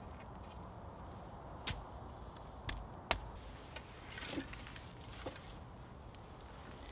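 Cut hazel stakes knocking against each other as they are gathered into an armful: a few sharp wooden clacks, the loudest about three seconds in, then fainter knocks.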